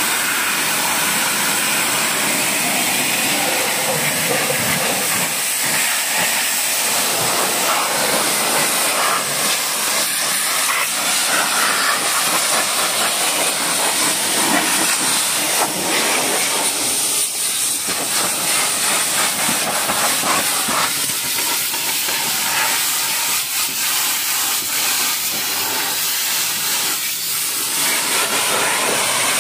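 Pressure-washer lance spraying a high-pressure jet of water onto a car's wheel, tyre and wheel arch: a steady, loud hiss of spray striking rubber and metal.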